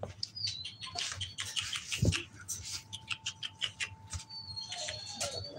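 American bully puppies squeaking with high, thin whines and scrambling about in a wire playpen, with many small clicks and scuffles of paws and claws and one low thump about two seconds in.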